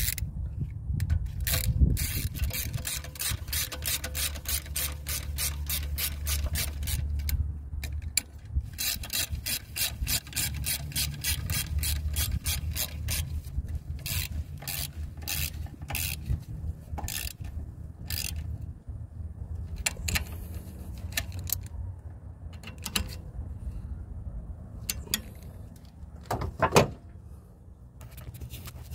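Ratchet wrench clicking as the 13 mm mounting bolts of a new EGR valve are tightened down: two long runs of fast, even clicks, then slower scattered clicks as the bolts snug up, and one sharper knock near the end. A steady low rumble sits underneath.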